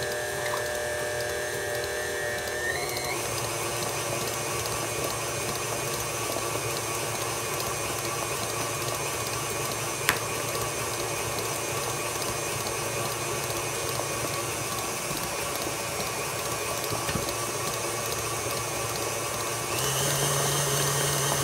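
Electric tilt-head stand mixer running, its beater whipping cake batter in a steel bowl: a steady motor whine that steps up in pitch about three seconds in and gets louder just before the end.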